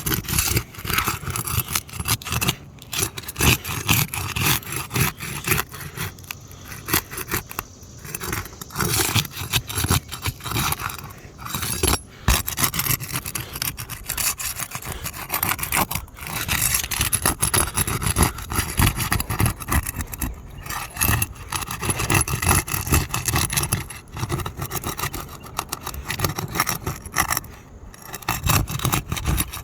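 Roof shingles being worked loose, with repeated, irregular scraping and rubbing strokes as the surrounding shingles are lifted and worked underneath to free a damaged one.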